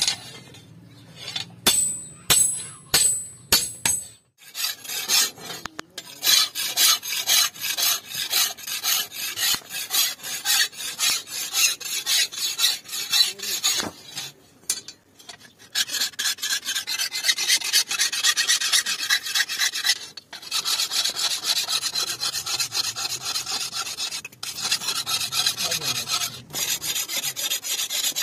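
A few ringing hammer blows on an iron sword blade over the anvil, then a hand file rasping along the blade's edge in quick repeated strokes, with a few short pauses.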